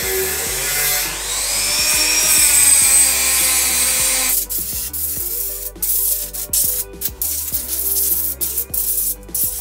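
Dremel rotary tool with an abrasive wheel grinding cured Sugru filler out of holes in a steel motorcycle frame. Its pitch rises and falls about two seconds in, and it stops abruptly about four seconds in. Short scrapes and clicks on the frame follow, over background music.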